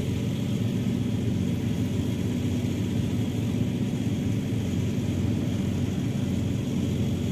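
Steady low rumble of outdoor background noise, even and unbroken throughout.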